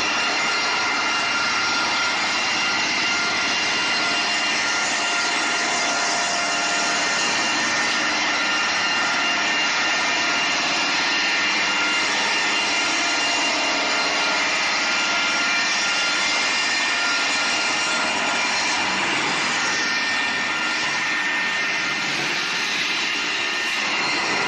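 Wood cross-cut saw machine running steadily: a continuous loud rushing noise with several steady tones on top, without clear breaks.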